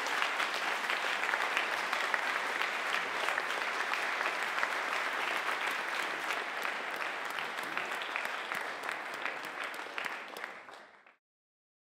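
Audience applauding steadily, a dense patter of many hands clapping, which fades out quickly near the end.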